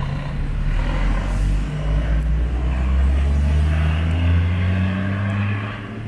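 A motor vehicle's engine running close by, its low hum slowly rising in pitch as it accelerates, loudest in the middle, over general street-traffic noise.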